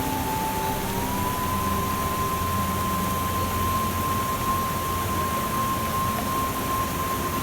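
Steady hiss-like ambient noise with a single held tone that steps up slightly in pitch about a second in and then stays level.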